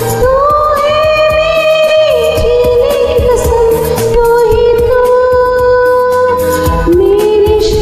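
Hindi film song sung karaoke-style over a Bollywood backing track: a woman's voice holds long notes that glide from one pitch to the next. It is recorded on ordinary earphone microphones.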